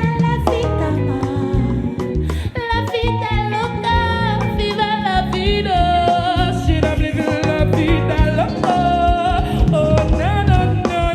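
Live band performance with a woman singing a melodic soul/afrobeats line over bass, guitar and drums with a steady beat.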